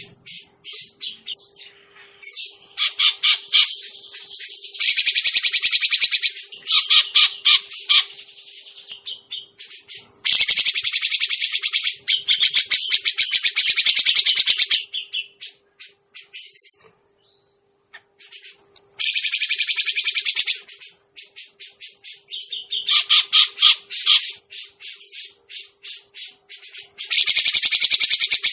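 Cucak jenggot (grey-cheeked bulbul) calls played as a bird-trapping lure. Loud bursts of fast, harsh chattering notes, each a few seconds long, repeat with short pauses between them over a faint steady hum.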